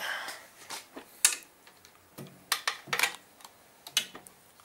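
Ratchet wrench with a 10 mm socket and extension clicking as it backs out an engine-cover bolt: a string of short, sharp, irregular clicks, about two or three a second.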